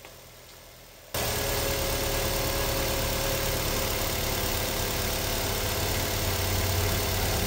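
Nissan Almera engine idling steadily, cutting in abruptly about a second in after a low background. It runs evenly on its new spark plugs, and the hard-start fault is fixed.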